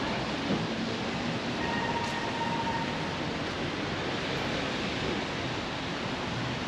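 Steady rain falling on a city street, with traffic running underneath. A faint short high tone sounds about a second and a half in and lasts about a second.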